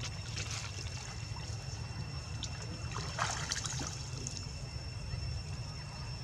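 Water splashing and trickling as macaques swim and dive in a pool: a splash about half a second in and a louder cluster of splashes about three seconds in.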